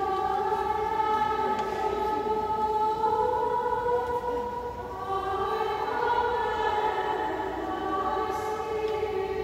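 Small choir (schola) singing sacred chant in long held notes that move slowly in pitch, with the reverberation of a large church.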